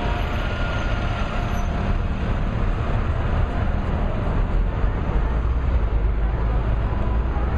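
Street traffic: trucks and cars running past, making a steady low rumble.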